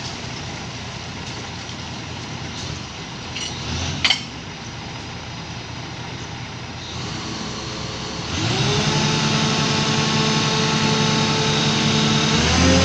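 A steady mechanical noise with one sharp knock about a third of the way in. A little past halfway a motor starts, rising quickly in pitch and then running steadily, and it steps up louder again near the end.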